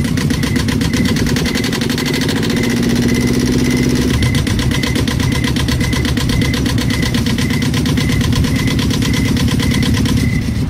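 Motorboat engine, a river 'bhotbhoti', chugging steadily with a fast, even beat.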